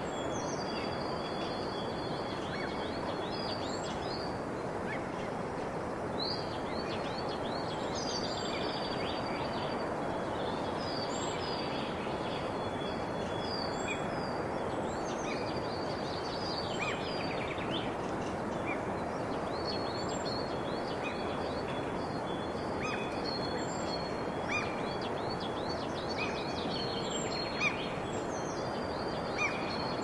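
Birds singing in many short high chirps and whistles over a steady outdoor hiss, with a few faint clicks near the end.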